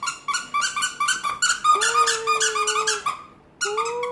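French bulldog vocalizing on command: a fast run of short, high-pitched squeaky whimpers, then two longer, steady whines, the second near the end.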